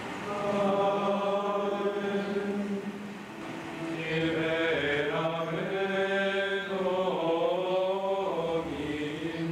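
Men's voices singing a slow liturgical chant, each note held long before stepping to the next.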